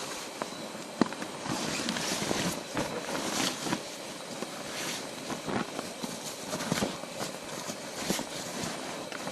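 Rain falling on a tarp shelter: a steady hiss with many irregular taps of drops striking the fabric.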